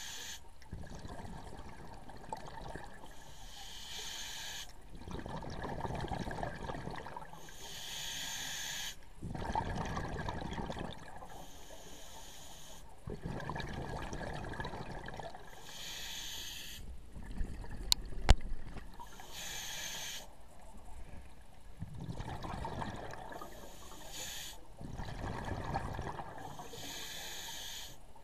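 A scuba diver breathing through an open-circuit regulator underwater: a short hiss on each inhale followed by a longer burst of bubbling exhaust, about one breath every four seconds. Two sharp clicks a little past the middle.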